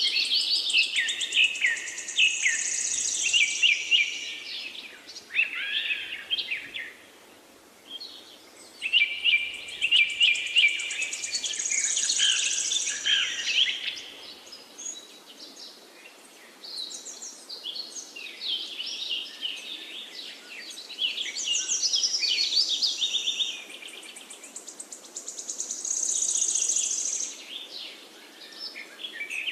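Small birds chirping and trilling in phrases of a few seconds, with short pauses between.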